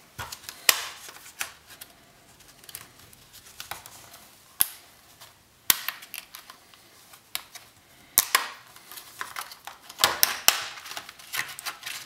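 Hard clear plastic clamshell packaging of a laptop RAM module being handled and pried open: scattered sharp clicks and crackles, coming thicker in the last few seconds.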